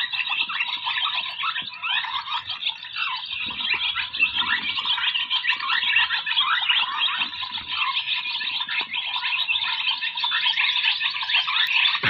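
A large flock of swallows twittering: a dense, unbroken chatter of short high chirps.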